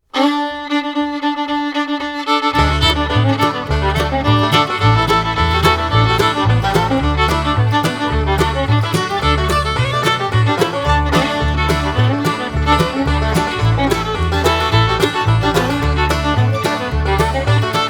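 Background music led by a fiddle: a held note opens, then a bass line and a steady beat come in about two and a half seconds in.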